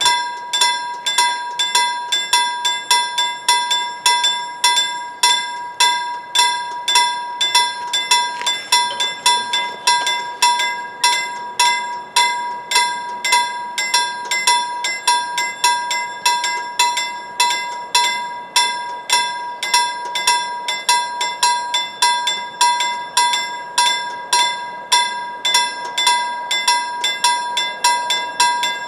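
Level-crossing warning bell ringing in an even, steady rhythm of about two strikes a second, signalling that the crossing is closing for an approaching train.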